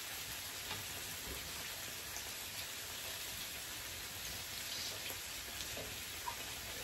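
Pork belly slices sizzling on an electric grill plate: a steady hiss, with a few faint small clicks.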